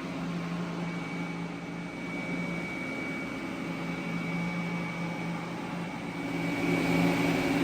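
Steady machine hum with a faint high whine, growing louder about six seconds in.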